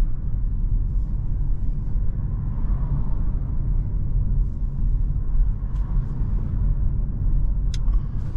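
Inside the cabin of an Audi A5 Sportback 45 TFSI, whose engine is a 2.0-litre turbocharged four-cylinder petrol, while it cruises at a steady speed: an even low rumble of engine, tyres and road. Two brief faint clicks come in the second half.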